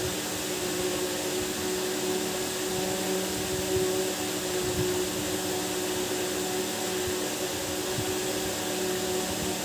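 Steady hum and hiss of an electric motor running, with a few held low tones and no change in level.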